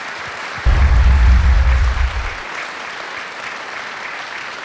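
Audience applauding steadily. A deep bass musical hit comes in under it about half a second in and fades after about a second and a half.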